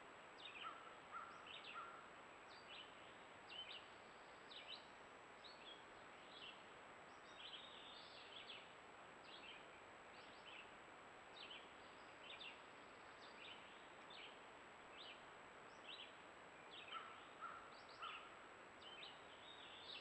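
Faint bird song in woodland: a string of short high chirps, about one a second, with a few lower notes near the start and again near the end, over a steady hiss.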